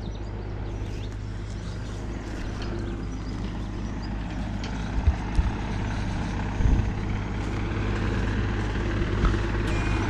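John Deere excavator's diesel engine idling steadily, growing a little louder toward the end, with a few dull thumps about halfway through.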